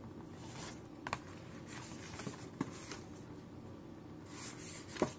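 Cardboard meal box handled and turned in the hands: soft rustling scrapes and three sharp taps, the loudest near the end.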